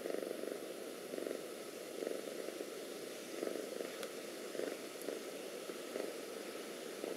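Domestic cat purring close to the microphone, a steady low rumble that swells with each breath about once a second.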